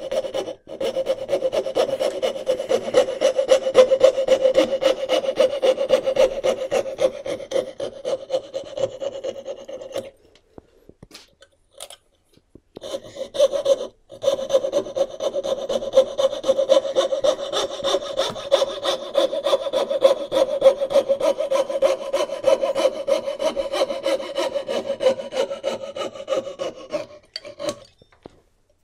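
Knew Concepts Mk4 fret saw's fine blade sawing through wood in rapid short strokes, cutting waste out of a joint. It runs in two long spells, with a break of about two seconds in the middle when the saw is repositioned, and stops shortly before the end.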